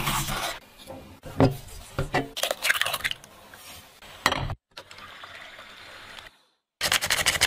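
A knife cuts through strawberries on a wooden cutting board with sharp knocks. Then comes a quieter steady whir as an electric hand mixer beats eggs and caster sugar in a glass bowl, and near the end a rapid run of ticks from the beaters.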